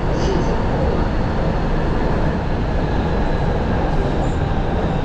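Xi'an Metro train running between stations, heard from inside the carriage: a steady, loud rumble of wheels on rail and running noise.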